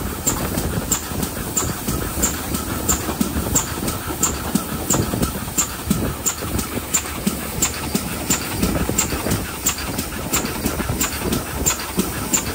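GWR 4575-class Prairie tank locomotive No. 5552 working a train, its steam exhaust beating in a steady rhythm of about two and a half beats a second over the running noise of the wheels on the rails.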